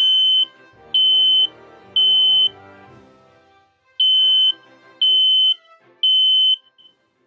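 Smoke alarm sounding its fire alarm: two rounds of three loud, high-pitched beeps, each about half a second long, with a pause between the rounds. This temporal-three pattern is the signal for fire, meaning get out right away.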